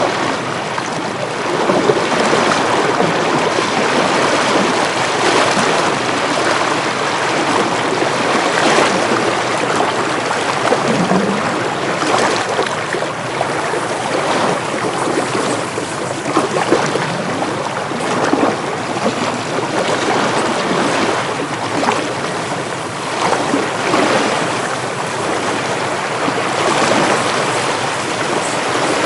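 Ocean waves washing in with wind: a steady rush of surf broken by irregular splashing surges.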